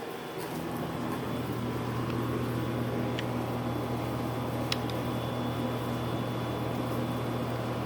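A steady machine hum that comes on about half a second in and holds at one low pitch, with a few faint light clicks.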